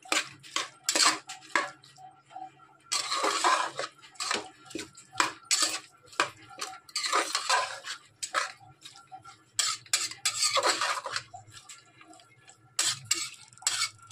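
Metal spoon stirring a thick masala of soya chunks in a pressure cooker, scraping and clinking against the pot's sides. Several spells of scraping come with clinks between them.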